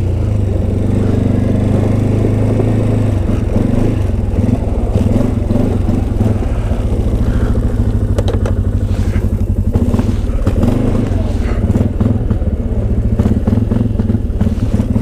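Motor vehicle engine running steadily at low speed, its pitch shifting slightly, with light clatter and scraping.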